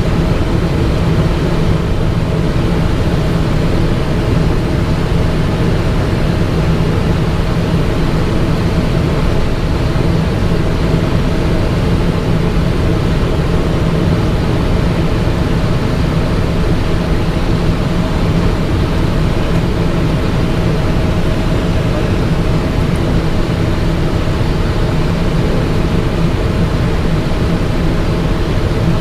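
Steady cockpit noise of a Cessna Citation XLS, its twin turbofan engines running at idle with a constant low hum while the jet taxis after landing.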